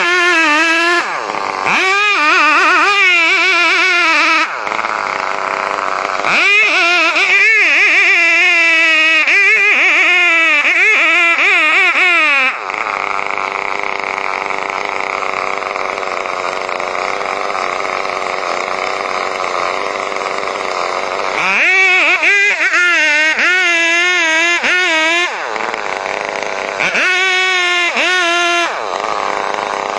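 Chainsaw running and cutting, its engine pitch wavering up and down under load in long loud stretches, with a steadier, slightly quieter stretch in the middle.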